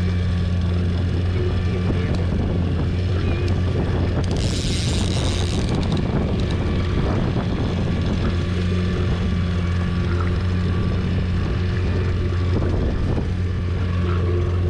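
Fishing boat's motor running steadily at trolling speed, a low even hum. A short hiss comes in about four seconds in and lasts a second or two.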